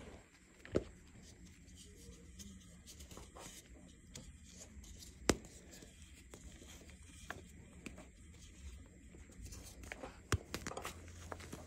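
Hands crushing and crumbling dry chunks of gym chalk and cornstarch in a plastic bowl: soft, continual crunching and crackling, with three sharper snaps as bigger pieces break, about a second in, midway and near the end.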